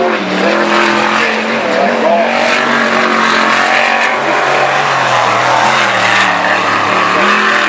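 V8 jet sprint boat engine running hard at high revs, its note stepping up and down as the throttle is worked through the turns, over a dense rushing noise.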